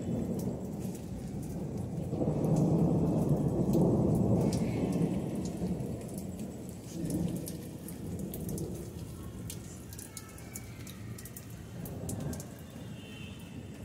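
Rain falling steadily on potted plants and the ground, with a low rolling thunder rumble that swells about two seconds in and fades after a few seconds, then weaker rumbles later.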